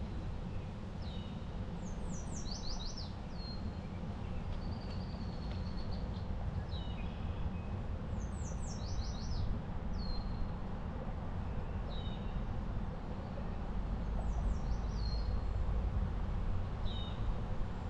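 Songbirds singing in clear, high phrases of short whistles and runs of quick down-sweeping notes, repeating about every six seconds. Under them runs a steady low rumble from the moving bicycle and wind on the helmet camera's microphone, which grows louder in the last few seconds.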